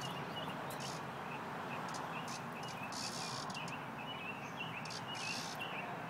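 Cicada giving short high buzzing distress calls as a small dog worries it, two of them about half a second long, the rest briefer. Under them runs steady outdoor background noise with small birds chirping.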